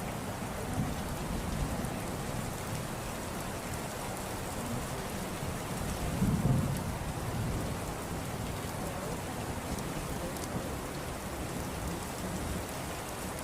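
Steady rain falling, with a low rumble of thunder swelling about six seconds in.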